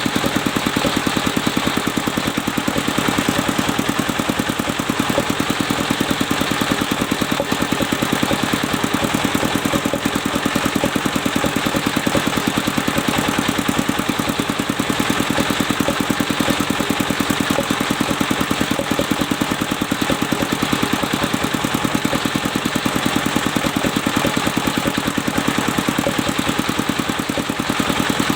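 Sawmill engine running steadily with a rapid, even pulsing beat.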